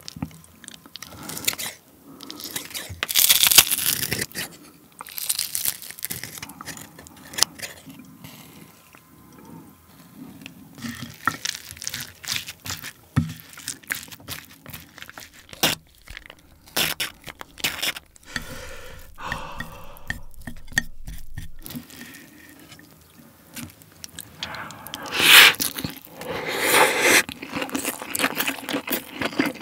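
Kitchen scissors snipping sauced, crispy boneless fried chicken into pieces, then a silicone spoon scraping and mixing the chicken into rice on a plate. Near the end comes close-miked chewing of a mouthful.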